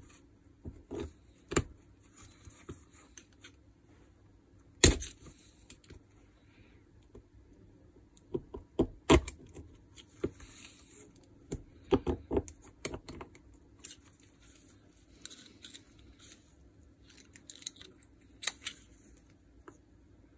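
Small metal and plastic parts of a cordless rotary hammer clicking and knocking as the tool is taken apart by hand: scattered sharp clicks, the loudest about five seconds in, with soft rustling of handling between.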